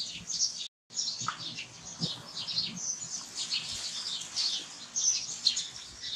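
Small birds chirping, many short high twitters a second, with a brief dropout to silence a little under a second in.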